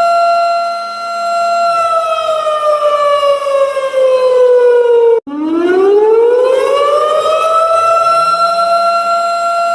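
Warning siren sounding a steady tone, then winding down in pitch for a few seconds. It cuts out abruptly about five seconds in and at once winds back up to the same steady tone.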